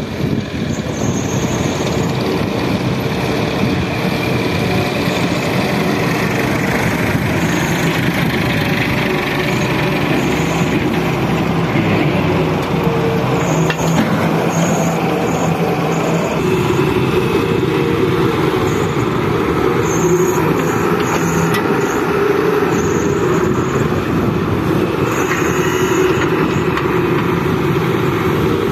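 Heavy diesel engines running steadily: a Daewoo wheeled excavator digging soil and loading it into a tractor trolley, with the tractor's engine running alongside.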